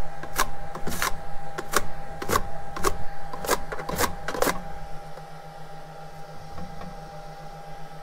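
Tacky adhesive side of a used magnetic build-plate sticker dabbed over and over on a glass print bed, snapping off the glass in sharp crackling ticks about twice a second as it picks up leftover glue residue; the ticks thin out and fade about halfway through. A steady low hum runs underneath.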